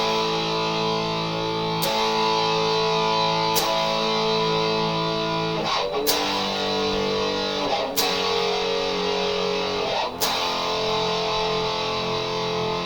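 Vicers HSS Strat-style electric guitar strumming chords, six strokes about two seconds apart, each left to ring out with good sustain. The chord changes about six seconds in.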